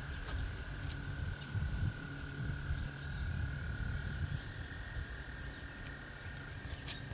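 A long steady high-pitched trill from a calling frog, shifting slightly in pitch about six and a half seconds in, over a constant low background rumble.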